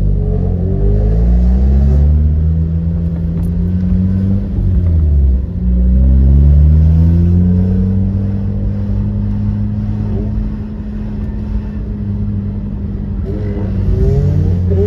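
Rotary-engined car accelerating: the engine note climbs, drops briefly at a gear change about five seconds in, then climbs again and holds steady.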